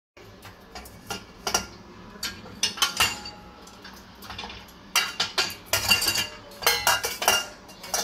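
Stainless steel pots and lids clinking and knocking against each other and the dishwasher's wire racks as they are handled. The clinks come in scattered clusters, a few early and a busy run in the second half.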